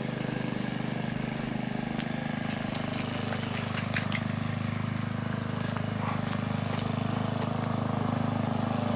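Push lawnmower's small engine running at a steady speed.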